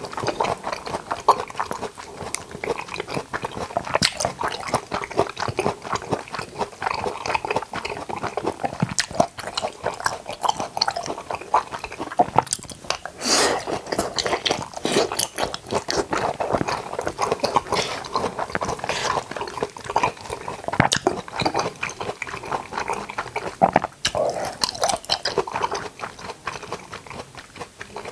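Close-miked chewing and biting of jackfruit: a dense, unbroken run of small mouth clicks and smacks.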